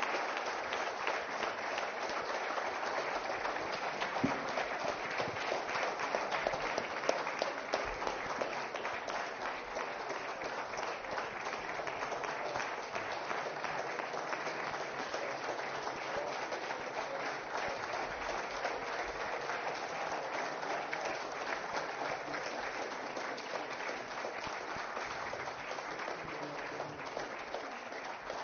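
Audience applauding steadily, a dense run of many hands clapping that eases slightly near the end.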